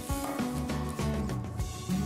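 Background music: an acoustic guitar tune with strummed chords.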